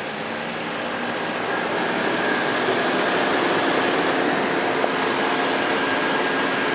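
2002 Mazda Protege 5's four-cylinder engine idling steadily, with a thin steady high whine over the running noise and no belt squeak to be heard.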